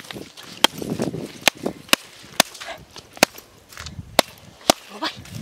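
A stick whacking a catfish on the ground to kill it: about eight sharp, short blows, unevenly spaced, with grass and dirt rustling between them.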